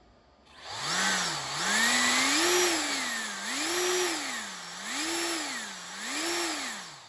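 Electric suction fan of a 3D-printed RC fan car being run up and down in speed about five times. Its whine rises and falls over a steady rush of air.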